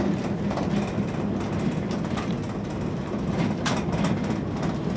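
Steady low rumble inside a moving gondola cable car cabin of the Ngong Ping 360 ropeway as it runs along the cable, with a few sharp clicks, the loudest about three-quarters of the way through.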